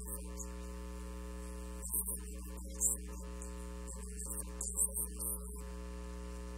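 Steady electrical mains hum with a buzz of evenly spaced overtones, broken by brief faint bursts of high hiss about two, three and five seconds in.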